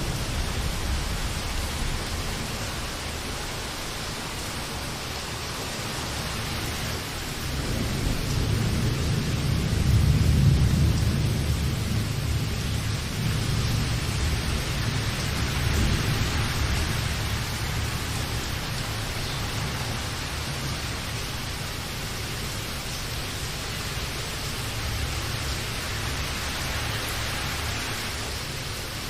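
Steady heavy rain hissing, with a low rumble of thunder that swells about a third of the way in and slowly fades.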